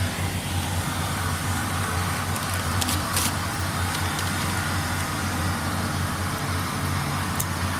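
A steady, low mechanical hum with a few brief clicks about three seconds in and again near the end.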